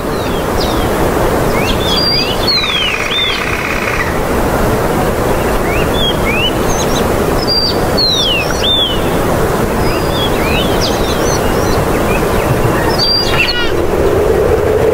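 Birds chirping: short, quick calls sliding up and down in pitch, scattered through a steady rushing background noise. A low steady tone comes in near the end.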